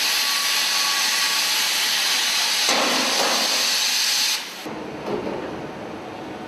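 Robotic welding on a car body line: a loud, steady, high hiss that cuts off abruptly about four and a half seconds in. Quieter factory machinery noise follows, with a clunk.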